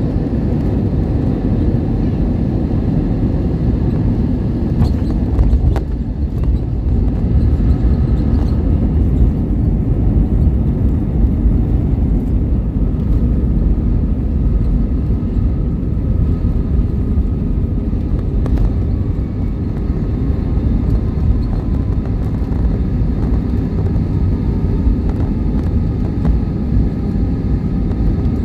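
Steady low rumble of an airliner's engines and airflow heard inside the passenger cabin during landing, with a faint engine whine above it and a brief knock about five and a half seconds in.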